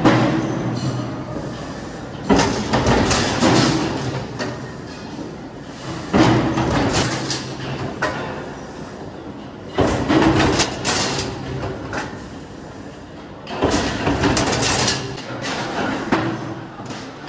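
Mechanical guillotine shear cutting sheet steel: four strokes about every four seconds, each a sudden loud clank as the blade shears the sheet, ringing on for a second or so, over the steady hum of the machine's motor.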